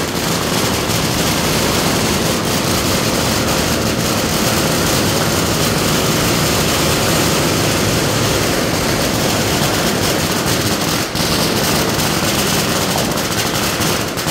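Fireworks going off from the street, shooting up green and red sparks: a loud, unbroken rush of dense crackling.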